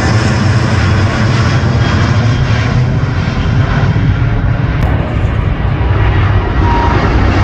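Jet airliner flying low overhead on its approach to land, a loud continuous roar heavy in the low end; its higher hiss thins out a little past the middle and then builds again.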